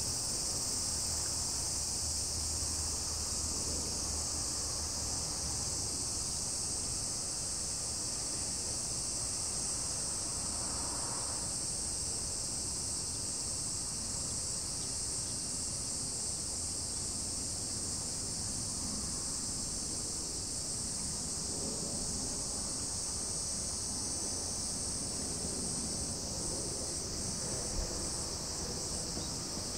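Steady, high-pitched shrill of a summer insect chorus, unbroken throughout, over a faint low rumble.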